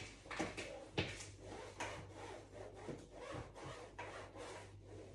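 Damp microfiber cloth wiping the back casing of a TV: irregular rubbing strokes, with a few sharper knocks, the loudest about a second in.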